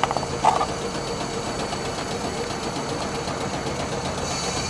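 Steady mechanical hum from a parked, powered-up Peter Witt streetcar, with two short clicks at the start and a higher hiss joining near the end.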